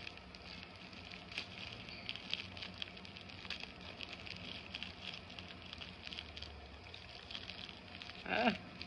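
The wrapping of a mailed package crinkling and crackling in irregular small clicks as it is handled and pulled at. A short vocal sound comes near the end.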